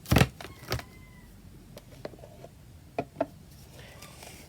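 Two thuds as things are set down on a worktable, with a faint whine fading out, then a few light taps and two sharp clicks as craft materials are handled.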